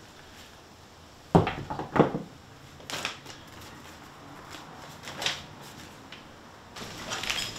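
Two sharp knocks about half a second apart as a brass PEX fitting and a crimp tool are set down on a plywood floor, followed by fainter rustling of a paper instruction leaflet being handled.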